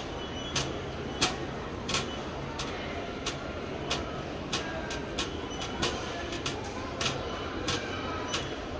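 Sharp crunching clicks at an even pace, about three every two seconds, over a steady low rumble.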